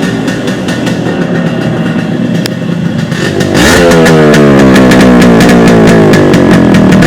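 Yamaha RX100's two-stroke single-cylinder engine running, then revved repeatedly from about halfway through, the pitch climbing and dropping with each blip of the throttle.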